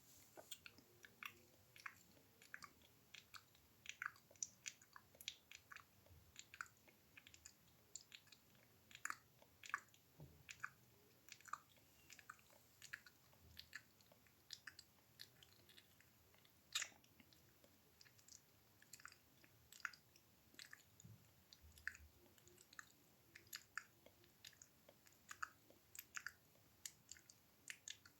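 Close-miked ASMR mouth sounds: faint, wet clicks and smacks of tongue and lips, several a second in an irregular run.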